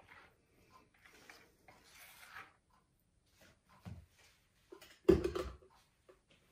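Silicone spatula scraping thick soap batter off a stick blender's head, soft rubbing and scraping sounds. A low knock about four seconds in, then a short loud clatter just after five seconds as the stick blender is set down on the wooden tabletop.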